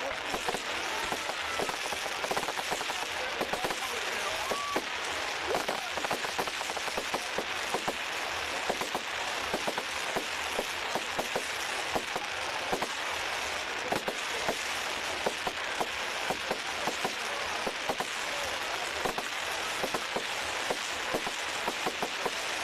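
Fireworks display crackling, a dense steady stream of small pops and crackles with no single big bang standing out.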